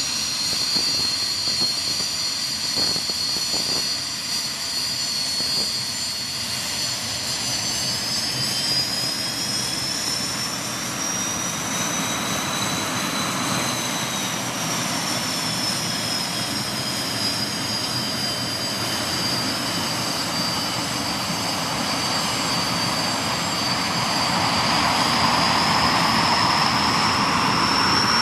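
Hawker Hunter jet taxiing past, its turbojet engine running with a high whine that rises in pitch, eases back, then climbs again. A rushing roar under the whine grows louder near the end.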